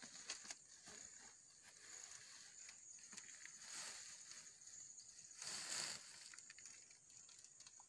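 Faint rustling and crackling of dry coconut coir fibre and a woven plastic sack as handfuls of fibre are pulled out and spread. There is a louder rustle about five and a half seconds in, over a steady high hiss.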